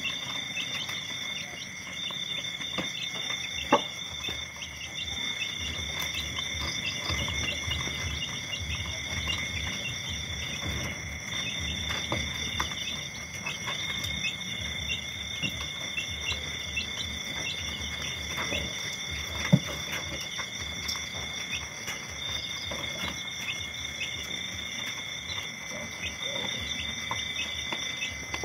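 Night chorus of crickets, a continuous high trill, with two sharp clicks about 4 and 20 seconds in.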